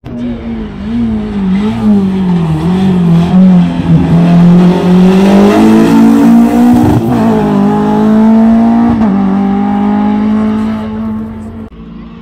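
Racing car engine running at high revs, its pitch rising and falling with throttle and gear changes. It grows louder over the first few seconds, holds loud through the middle, and fades near the end as the car goes by.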